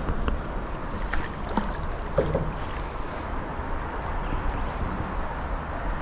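Steady rumble of wind buffeting the microphone, with a few faint clicks and ticks.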